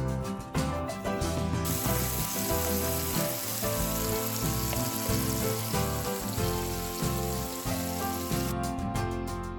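Food sizzling as it fries in a hot pan, starting about two seconds in and stopping shortly before the end, over background music.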